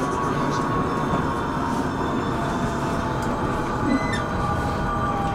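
A tram running along its rails, a steady rolling rumble with a faint constant whine and a few light clicks.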